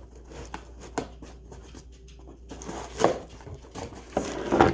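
A parcel being opened by hand: packaging rustles and tears, with a few sharp clicks and knocks, the loudest near the end.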